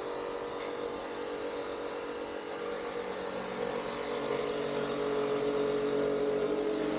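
Street traffic with a steady engine hum that gets somewhat louder in the second half.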